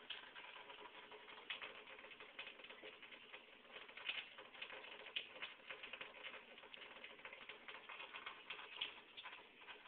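Cat drinking from a thin stream of tap water running into a stainless steel sink: faint, quick, irregular clicking and splashing of its laps at the trickle.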